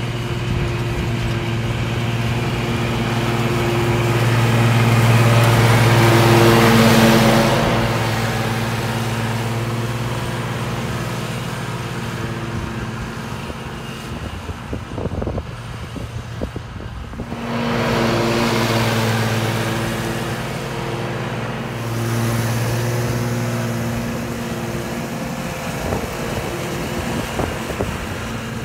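Ride-on lawn mower's engine running steadily as it mows, its drone growing louder and softer as it moves about the lawn.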